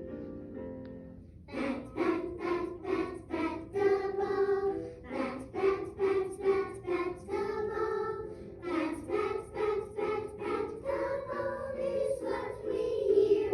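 Children's song: a few piano notes, then from about a second and a half in a group of voices singing in short, evenly spaced syllables with accompaniment.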